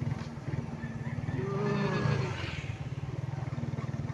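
Motorcycle engine running steadily under way, a rapid low pulsing from its exhaust, heard from on the moving bike. About a second and a half in, a faint wavering call rises and falls in the background for about a second.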